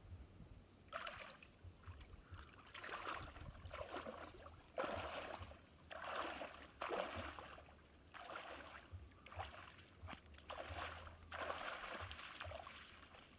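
A person wading through knee-deep water, splashing and sloshing with each step, about one step a second.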